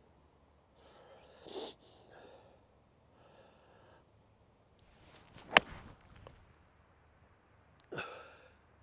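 A left-handed golfer's driver strikes the ball off the tee once, a single sharp crack a little past halfway through. It is a mishit drive that carries only about 80 metres. Short breathy sounds come before the swing and just after it.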